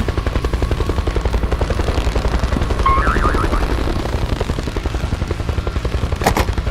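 A vehicle engine running with a fast, steady low chugging. A short high chirp comes about halfway through, and a sharp knock comes near the end.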